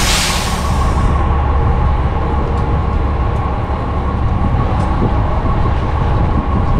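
City transit bus idling at a stop: a burst of air hiss at the start that fades within about a second, then a steady low engine drone with a constant whine over it.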